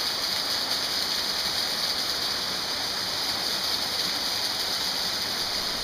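A small waterfall and stream cascade pouring over boulders into a rocky pool, making a steady rushing splash.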